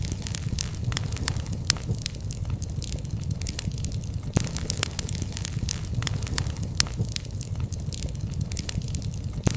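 Wood fire burning in a fireplace: a steady low rumble of flame with many irregular sharp crackles and pops from the burning logs.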